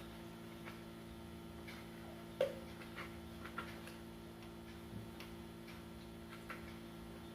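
Scattered small clicks and taps from hands handling the unboxed parts and wiring, with one louder knock about two and a half seconds in, over a steady low hum.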